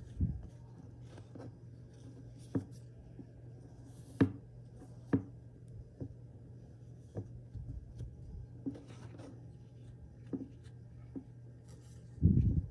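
A cloth rubbed and pressed over a phone's glass screen protector to squeeze out air bubbles, with scattered light clicks and taps of fingers on the glass and table. A faint steady low hum runs underneath, and a dull thump comes near the end.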